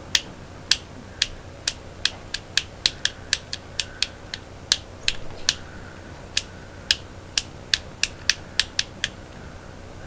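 Fidget Cube's toggle switch being flicked back and forth: about two dozen sharp plastic clicks at an uneven pace, with a short pause a little past halfway, stopping about a second before the end.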